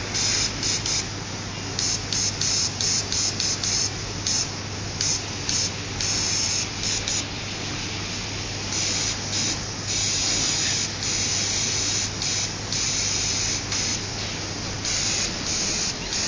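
Airbrush spraying in on-off bursts of hiss, some short and quick, others held for a second or two, over a steady low hum.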